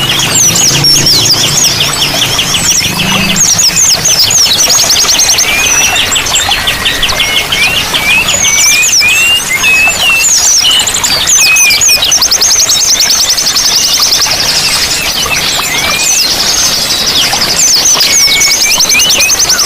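Several songbirds calling over one another: rapid buzzy trills, chirps and short whistled glides, layered over a steady rush of running water.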